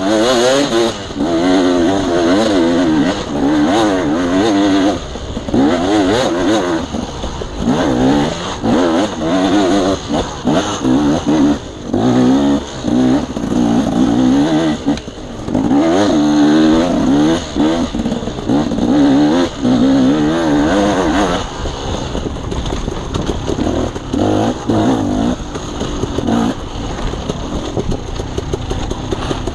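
Dirt bike engine revving up and down as the throttle is worked on and off through the trail, its pitch rising and falling every second or so with brief drops; over the last several seconds it runs quieter and lower.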